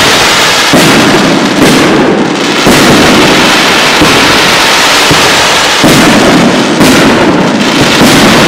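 Loud professional aerial fireworks display: shells launching and bursting overhead, about six sharp bangs over a continuous din of detonations.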